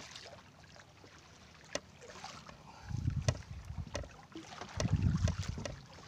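Wind and water noise aboard a small fishing boat at sea: two low rumbling gusts, about three and five seconds in, over a faint hiss with scattered light clicks.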